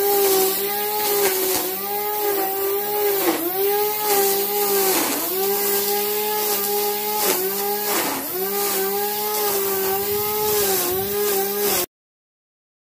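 Corded electric Krisbow string trimmer running at full speed, a steady whine whose pitch sags briefly again and again as the nylon line bites into thick grass. The sound cuts off suddenly near the end.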